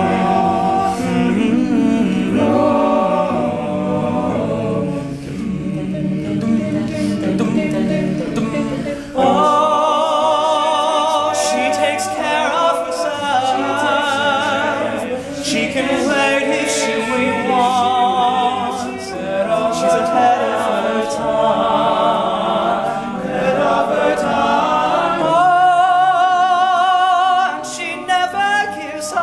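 All-male a cappella group singing close harmony without lyrics. About nine seconds in the low voices drop back and higher voices with vibrato carry the melody.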